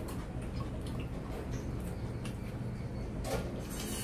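Soft clicks and small sounds of people eating rice by hand from glass plates, with a brief louder scrape about three and a half seconds in, over a steady low hum.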